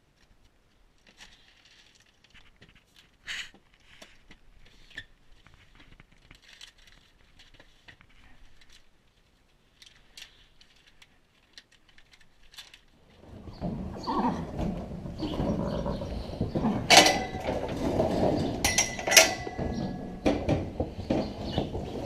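Feed-bin lids and a scoop clicking and scraping faintly as grain is measured into a feed pan. About halfway through, much louder barn noise takes over: clatter and a few sharp knocks, with hungry horses calling at feeding time.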